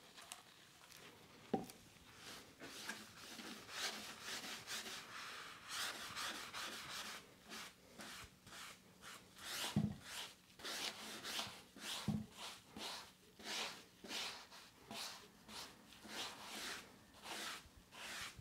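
A sponge rubbed back and forth over a wooden chair backrest, working in wood stain with quick, repeated wiping strokes, about two to three a second. A sharp knock about a second and a half in, and two duller thumps partway through.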